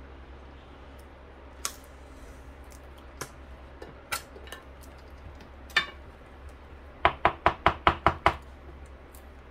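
Small hard objects knocking and clicking: a few separate knocks, then a quick run of about eight knocks in just over a second near the end.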